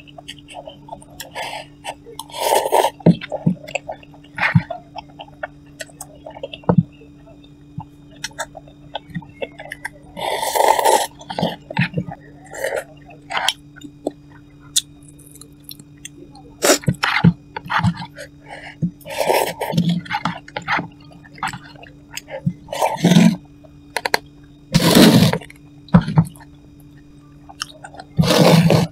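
Close-up sounds of someone eating cup noodles: about half a dozen loud slurps, each lasting about a second, with chewing and small clicks in between, over a steady low hum.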